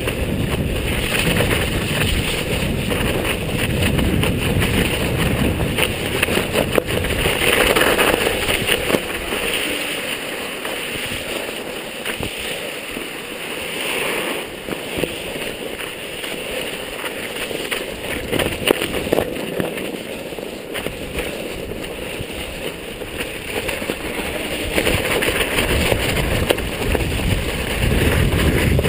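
Mountain bike riding over a snowy track: wind rushing over the microphone and tyres running through snow, the low rumble easing off in the middle and coming back near the end.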